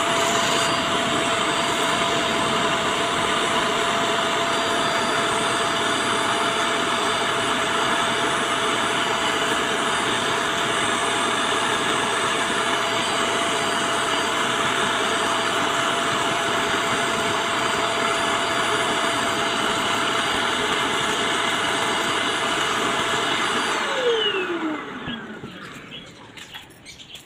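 Vacuum cleaner running steadily, drawing dust through its hose while a car's panel air filter is cleaned. About 24 seconds in it is switched off and its motor whine falls in pitch as it spins down.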